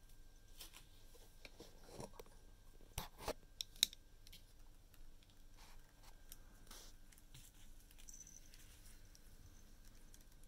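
Kitten nibbling and chewing dried bonito flakes from a hand, faint crunching and crackling of the dry flakes. A few sharp clicks come close together about three to four seconds in.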